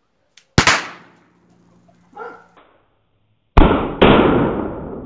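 Shots from an HDR 50 .50-calibre CO2 revolver firing slugs loaded with Hilti powder-actuated cartridges, the slugs exploding against a metal door. One sharp bang comes about half a second in, then two loud bangs less than half a second apart a little past three and a half seconds, the last ringing out for well over a second.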